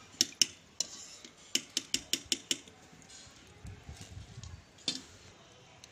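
A wire-mesh frying skimmer tapped against the metal rims of a kadhai and a steel tray, shaking off oil and freshly fried besan pakoras. It gives sharp metallic clicks: a few near the start, a quick run of six in the middle and one more near the end.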